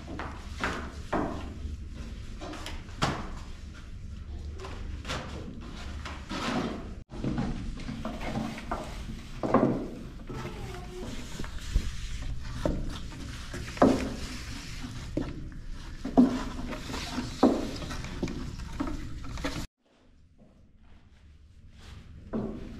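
Thin wooden rolling pins knocking and rolling on wooden boards as tiri bread dough is rolled out: a run of irregular clicks and knocks over a steady low hum. The sound cuts off suddenly near the end and comes back faintly.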